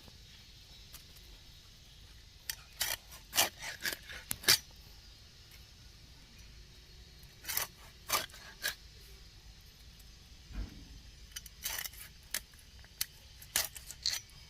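Blade cutting a rohu fish into pieces: three bursts of sharp, crisp cutting strokes a few seconds apart.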